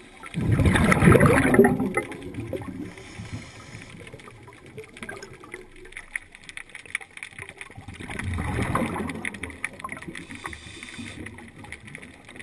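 A diver's exhaled bubbles gurgling past an underwater camera twice, about eight seconds apart, each burst lasting a second or two, with a faint hiss after each and small clicks in between.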